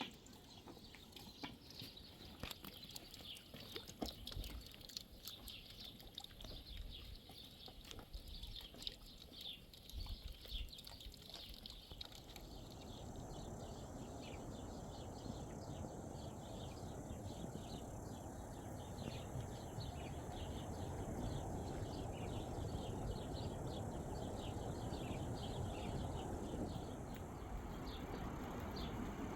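Birds chirping with many short, high calls. From about twelve seconds in, a steady low rushing noise comes in and slowly grows louder under them.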